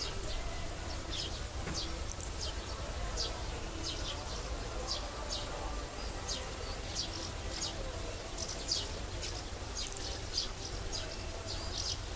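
Outdoor ambience: many short, high chirps, several a second and irregular, over a steady low rumble.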